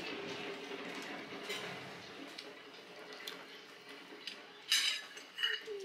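Spoons and forks clinking against plates and bowls during a meal: scattered light taps, with one sharper clink about five seconds in.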